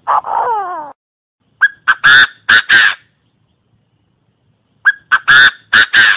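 Chinese francolin calling: a falling drawn-out note at the start, then two loud, harsh phrases of about five notes each, some three seconds apart.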